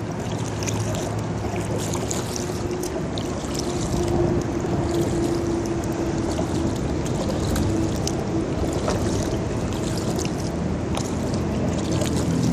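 Kayak paddle strokes in river water: the blades dipping and pulling, with splashes and drips, over a faint steady hum.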